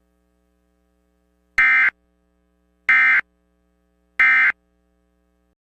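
Emergency Alert System end-of-message signal: three short bursts of digital SAME data tones, about a second and a third apart, marking the close of the alert.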